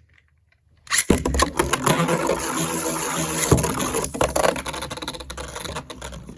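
Two Metal Fusion Beyblades, Storm Pegasis and Lightning L-drago, launched into a stadium, where they spin with a whirring scrape and clash with sharp knocks. The noise starts suddenly about a second in and slowly fades as the tops lose speed.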